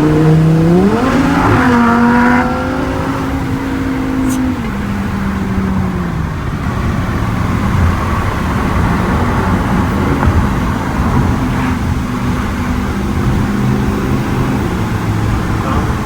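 Lamborghini Huracán Performante's V10 engine accelerating in sport mode, pitch rising with a gearshift step about a second and a half in, then dropping off after about four seconds. It then settles to a steady, quieter run with road noise.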